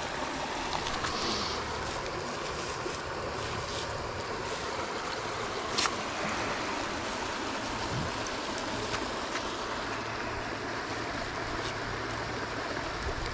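Creek water rushing steadily over rocks, with a single brief click about six seconds in.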